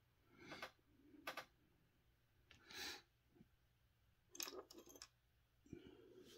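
Faint, scattered clicks and knocks of RC transmission parts being handled, about five small sounds spread through the stretch.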